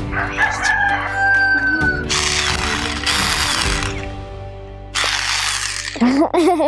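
Electric hand mixer switched on twice with its beaters in the air: it runs with a hissing buzz for about two seconds, then again for about a second, over steady background music.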